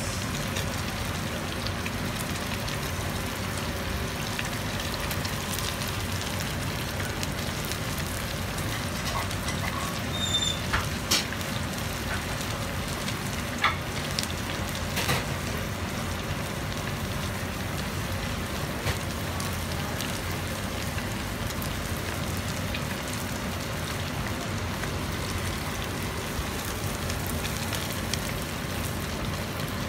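Kimchi pancake frying in plenty of oil in a non-stick pan over medium heat: a steady sizzle, with a few sharper crackles between about ten and fifteen seconds in.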